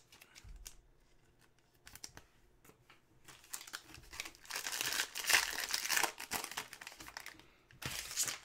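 A foil 2020 Panini Prizm football hobby pack wrapper being torn open and crinkled by hand. After a few light handling clicks comes a few seconds of dense crinkling, then a shorter crinkle near the end.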